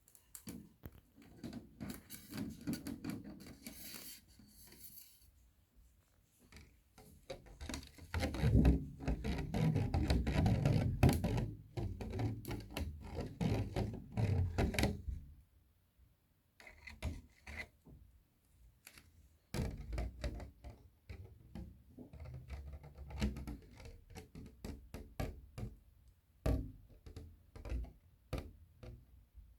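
A round cake box and its plastic lid handled close to the microphone: scattered taps and clicks, with a louder stretch of rubbing and scraping in the middle.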